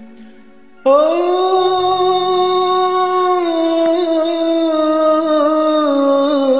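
A man's voice sings a long wordless held note, coming in suddenly about a second in. The note steps down in pitch partway through and wavers a little near the end.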